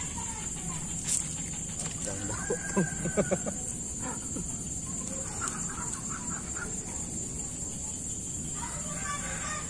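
A run of short, loud animal calls about three seconds in, with a few fainter ones a couple of seconds later, over a steady high-pitched hiss.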